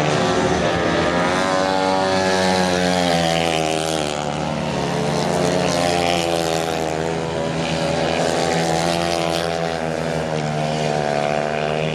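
Solo sand-track racing motorcycle's single-cylinder methanol engine running hard as it laps the track, its note rising and falling slightly as the rider goes through the bend and down the straight.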